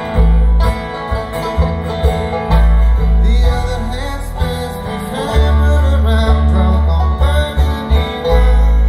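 Live acoustic bluegrass band playing: strummed and picked acoustic guitars and banjo over an upright bass, whose deep notes boom heavily in the audience recording.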